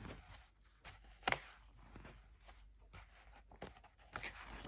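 Paper pages of a pattern book being turned and handled: soft swishes and rustles, the loudest about a second in.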